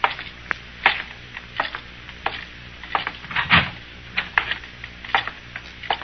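Footsteps from an old-time radio drama's sound effects, a run of irregular steps about three a second, over the steady low hum of the old recording.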